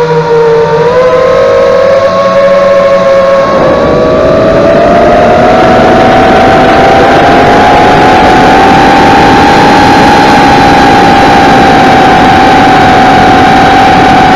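FPV quadcopter's four 2300Kv Emax brushless motors, on a 3S battery, whining in flight over a steady rush of wind, heard from the onboard camera. The pitch sags a little at first, climbs about three and a half seconds in as the throttle comes up, and then holds.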